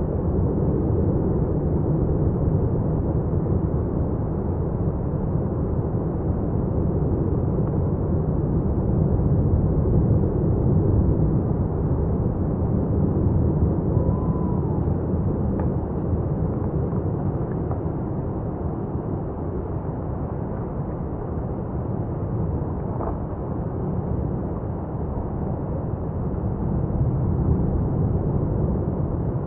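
Paroxysmal lava fountain at Etna's South-East crater erupting: a continuous deep rush of noise that swells and eases a little but never stops.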